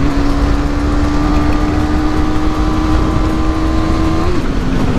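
Motorcycle engine running at a steady cruise, its note climbing slowly under light throttle, then dipping briefly about four seconds in, as on a gear change or throttle roll-off. Wind and road rumble run underneath.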